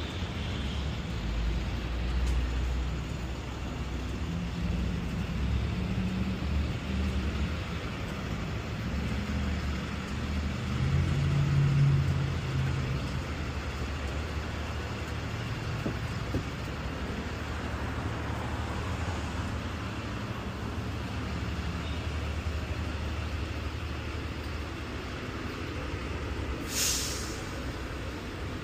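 City street traffic: a steady low rumble of vehicle engines and tyres, swelling briefly about twelve seconds in, with one short sharp hiss near the end.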